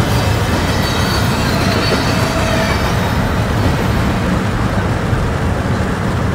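Freight train rolling past, a steady rumble of cars on the rails with a hiss that thins out after about three seconds.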